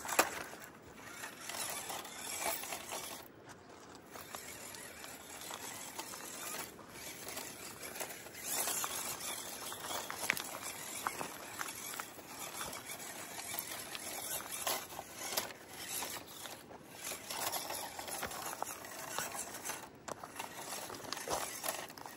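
WPL C24 1/16-scale RC crawler's small brushed motor and gears running, rising and falling in loudness as the truck crawls over rough ground, with scattered clicks and scrapes from the tyres and chassis.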